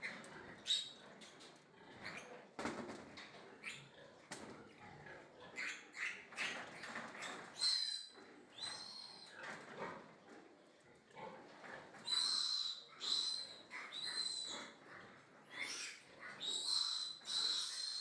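Piglet squealing in repeated sharp, high-pitched squeals as it is caught and restrained for castration, the squeals coming louder and closer together in the second half. Short knocks and rustles of handling in between.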